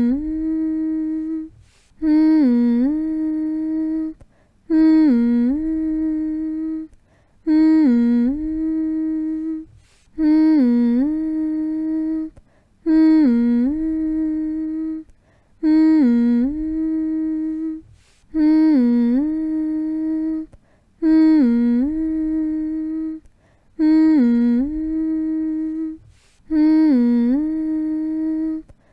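A person humming the same short phrase over and over, about every two and a half seconds: a held note that dips down and comes back up in the middle, with a brief pause between phrases. A steady, lullaby-like hum meant to soothe a baby to sleep.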